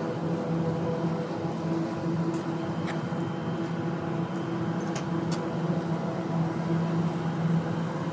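Train carriage interior: a steady rumble with a constant humming drone from the train's motors, and a few faint clicks about three and five seconds in.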